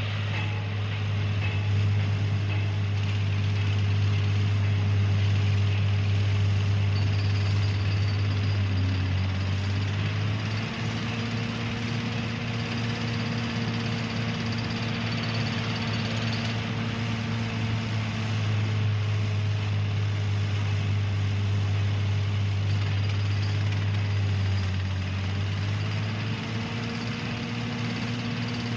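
Construction-site ambience dominated by heavy machinery running steadily with a strong low hum, its pitch shifting slightly about ten seconds in and again near the end.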